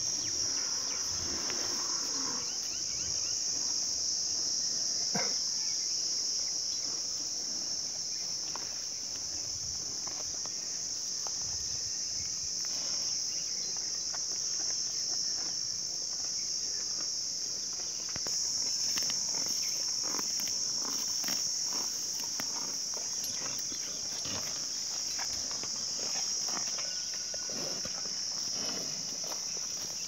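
Steady, high-pitched insect chorus chirring without a break, growing slightly louder about two-thirds of the way through, with scattered faint clicks and rustles beneath it.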